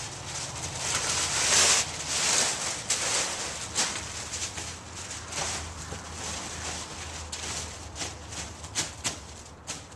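Heavy brown moving paper pad being crumpled and crinkled by hand, then stuffed into a cardboard box as packing around a TV. The crackling is loudest about a second or two in, then comes as scattered sharp crinkles.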